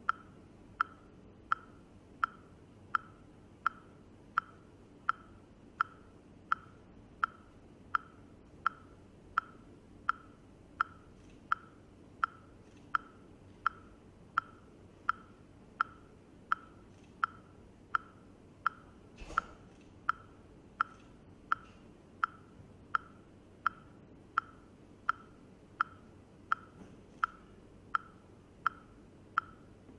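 Steady metronome-like ticking, about three short, sharp pitched clicks every two seconds, keeping an even beat. One soft low thump sounds about two-thirds of the way through.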